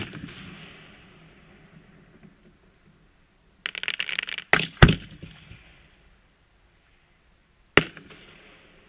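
Fireworks display: aerial shells bursting with sharp bangs, each trailing off in an echo. One bang comes at the start, then a run of rapid crackling about three and a half seconds in, two quick bangs just after it, and another bang near the end.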